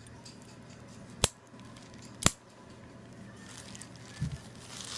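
Two sharp clicks about a second apart, from padlocks and packaging being handled as a box of padlocks is unpacked.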